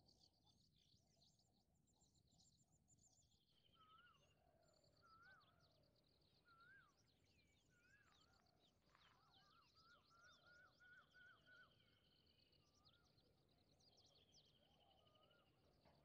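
Faint chorus of small birds: many short high chirps and a few quick descending trills, joined from about four seconds in by a run of repeated rising-and-falling whistled notes.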